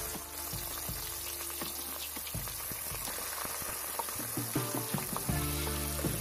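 Rohu fish pieces sizzling in hot mustard oil in a steel kadai, a steady hiss with scattered crackles and pops just after the fish goes in.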